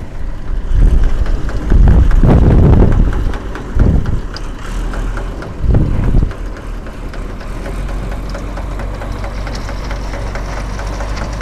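Farm tractor running as it pulls a manure spreader spreading organic fertilizer. Loud, uneven low rumbles come in the first six seconds, then it settles into a steady drone.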